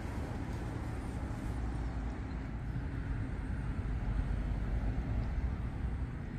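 Steady low rumble and hiss of background noise, with no distinct calls from the swans.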